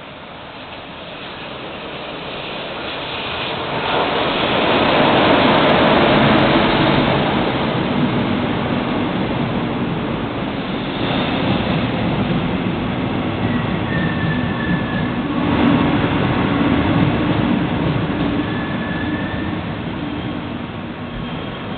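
Double-deck regional train arriving along the platform: the rumble and rush of the passing cars build to a peak about five seconds in, then slowly die down as the train brakes. Two brief high squeals come in the second half.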